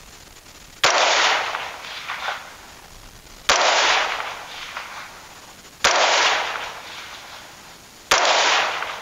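Four rifle shots, 75-grain rounds, about two to two and a half seconds apart, each followed by a long fading echo.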